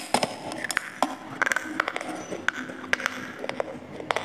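Close-miked crunching of a dry clay roll being bitten and chewed: a run of sharp, irregular cracks and crumbles, several a second.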